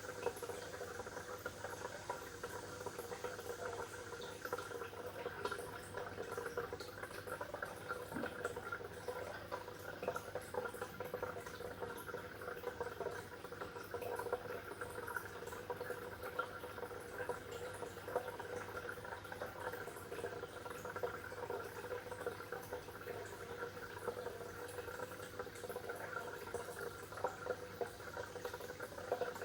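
Water bubbling steadily: a continuous stream of small bubbles and gurgles that keeps an even level throughout.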